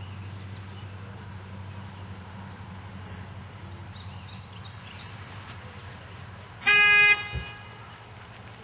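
A single short horn toot, loud and lasting about half a second, near the end, over a steady low hum.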